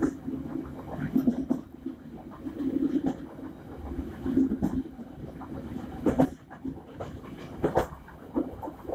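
Passenger train running along the track, heard from the rear vestibule: a steady rumble from the wheels and running gear, with sharp knocks standing out about six seconds in and again near eight seconds.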